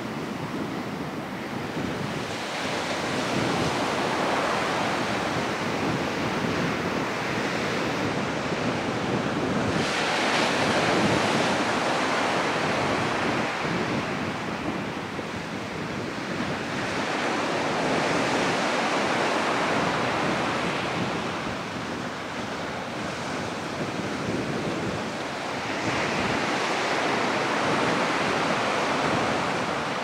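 Ocean surf breaking on a sandy beach: a steady rush of wave noise that swells and eases about every eight seconds as each set of waves comes in.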